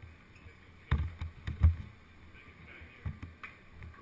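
A few dull thumps and knocks over a low rumbling background: a cluster about a second in, the loudest near the middle, and two lighter ones about three seconds in.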